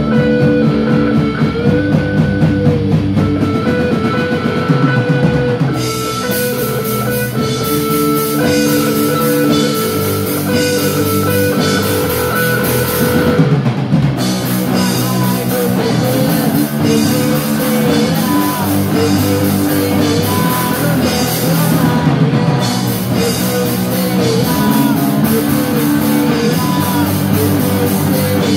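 Rock band playing live: electric guitars holding sustained, ringing notes over a drum kit, with cymbals coming in loudly about six seconds in.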